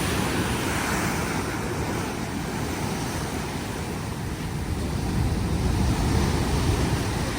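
Ocean surf, waves breaking and washing in, with wind rumbling on the microphone; the surge swells louder about five to six seconds in.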